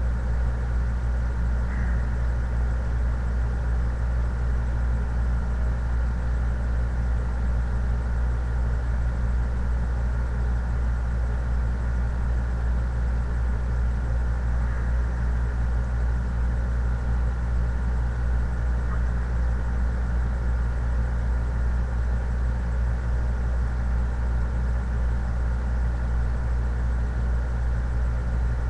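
A steady low hum with a thin high whine above it, unchanging throughout.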